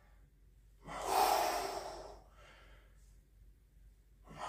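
A man breathing out hard from exertion during kettlebell curls: one long heavy breath about a second in, then a fainter breath.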